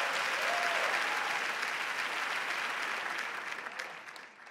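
Studio audience applauding, the clapping thinning out and fading away over the last second.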